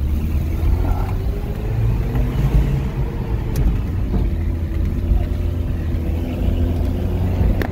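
1993 Toyota pickup's 22RE four-cylinder engine running hard at high revs, heard from inside the cab, its pitch climbing a little early on and then holding, as the truck is thrown sideways around a dirt corner. Under it a heavy rumble from the rough field, with a couple of sharp knocks from the cab.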